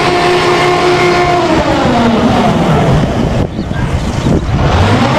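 Water tanker truck's engine running fast and steady while its roof-mounted water cannon sprays. The pitch sags about two seconds in, dips briefly twice, and climbs back near the end.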